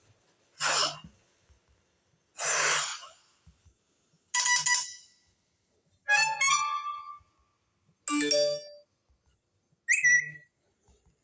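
Six short iPhone text tones played one after another about two seconds apart, each a different tone: the first two are whooshes, then come pitched chimes and short runs of notes, and the last is a brief high blip.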